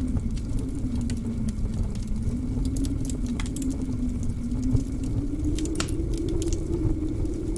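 Blizzard wind howling in one low, moaning tone that sinks over the first couple of seconds and then slowly rises again, over a steady rumble. A wood fire in a fireplace crackles through it with scattered sharp pops.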